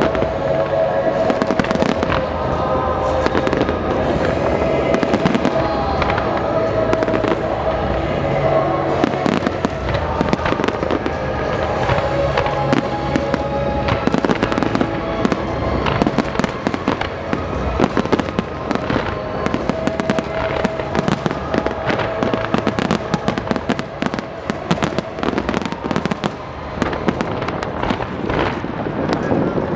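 Fireworks going off in rapid succession, a dense barrage of bangs and crackles, over the show's accompanying music.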